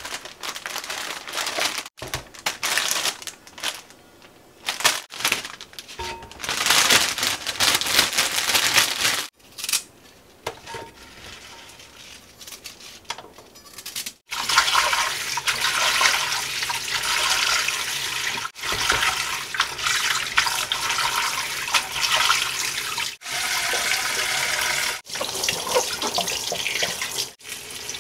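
Kitchen tap water running into a stainless steel sink while spinach and mushrooms are rinsed by hand, steady from about halfway through. Before that come short, cut-up stretches of handling and rustling as food containers and a bag of greens are set down.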